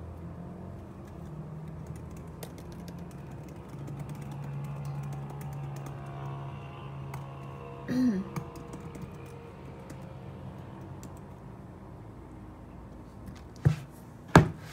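Typing on a tablet's keyboard case: a steady run of soft key clicks. About eight seconds in comes a brief louder sound with a sliding pitch, and near the end two sharp knocks, the second the loudest.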